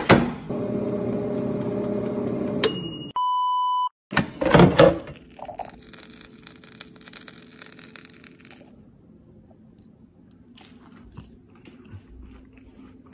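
A sharp clunk, then the steady whir of an air fryer's fan for about two and a half seconds. Then a censor bleep, one high steady tone lasting under a second, covers a swear word, followed by clattering knocks and quieter scattered crackles near the end.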